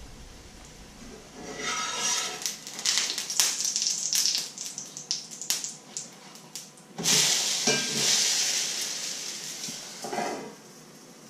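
Pancake frying in a hot pan, sizzling loudly in two long spells, with the clicks and scrapes of a metal utensil against the pan. A short metal clank near the end as the pot lid goes back on.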